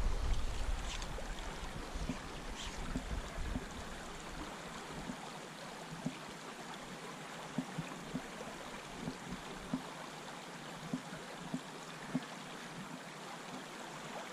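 A river flowing steadily over a stony bed, with scattered small clicks and knocks through it and a low rumble in the first few seconds.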